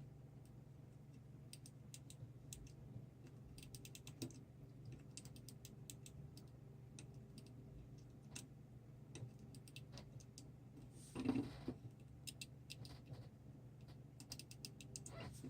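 Light, irregular clicks and taps of small tools at a soldering bench, coming in short clusters, with one duller bump about 11 seconds in, over a steady low hum.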